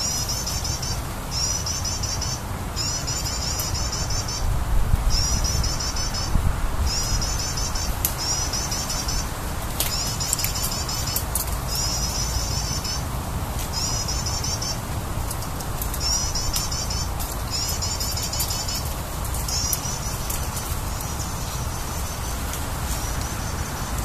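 Prinia (prenjak) calls: short, high, rapidly trilled phrases about a second long, repeated over and over with brief breaks, as used to lure prinias in to a trap. A steady low rumble lies underneath.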